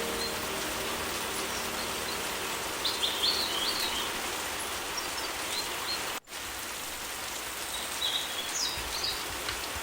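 Steady rain with birds chirping, a few short calls about three seconds in and again near the end. The rain cuts out for an instant about six seconds in.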